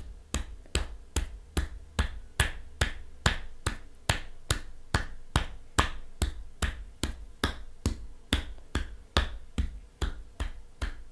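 Thumping massage: steady percussive strokes on a body, about two and a half a second, each a short sharp thump.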